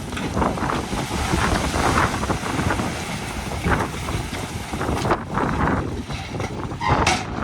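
Heavy diesel earthmoving machinery running steadily, with wind buffeting the microphone and a short harsh burst just before the end.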